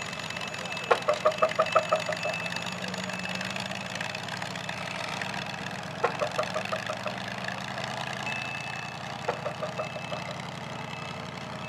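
V8 engine of a V8-converted grey Ferguson tractor running steadily near idle. Three times a short run of rapid, pitched pulses stands out above it.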